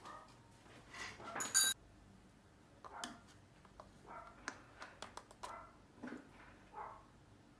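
A plastic flip-top lid snapping open on a baking powder tub, loud and sharp about a second and a half in, then a metal measuring spoon clicking and scraping against the tub as it scoops the powder, with several short soft sounds in between.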